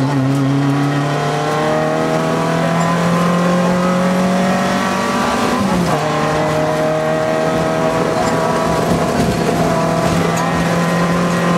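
Citroën AX rally car's engine heard from inside the cabin, pulling hard at full throttle and rising in pitch, with one upshift about six seconds in where the pitch drops before climbing again.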